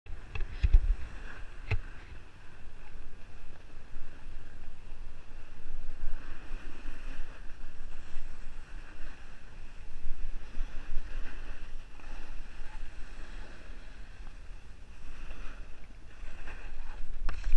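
Edges scraping and hissing over packed, groomed snow as a rider slides down a ski run, swelling and fading with the turns, with wind rumbling on the microphone. A couple of knocks in the first two seconds.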